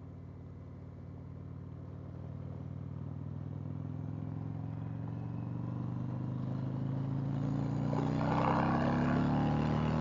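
Indian Chieftain Dark Horse motorcycle's V-twin engine pulling under acceleration, its note rising slowly in pitch and getting steadily louder. A rush of wind noise builds near the end.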